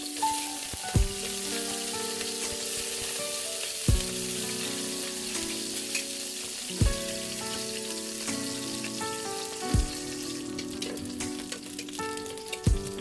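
Salt-and-pepper-seasoned food frying in hot oil in a pan, a steady sizzle.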